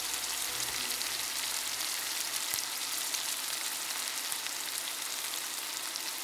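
Sesame-crusted ahi tuna steak sizzling steadily as it shallow-fries in hot avocado oil in a pan, with many small crackles.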